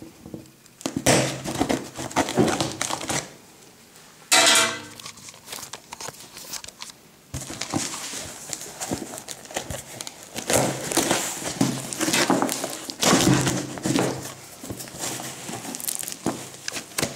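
A taped cardboard box being worked open by hand and with a knife: irregular scraping, rustling and crinkling of cardboard and packing tape, with a brief squeal about four seconds in.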